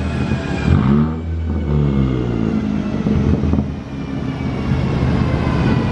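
Ford Focus ST's turbocharged 2.0-litre EcoBoost four-cylinder running, its engine note dipping in pitch about a second in and climbing back up.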